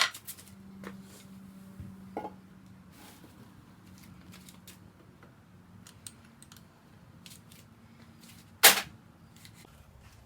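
Metal clicks and knocks from a VW air-cooled engine's crankcase halves being separated and handled, with a sharp clank at the start and a louder one near the end.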